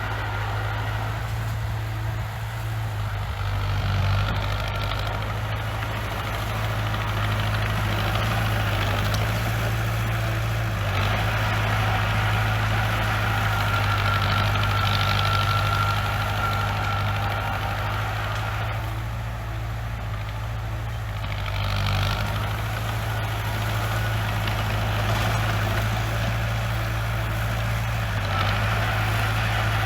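Bulldozer's diesel engine running steadily, with a thin high whine that rises and fades a couple of times.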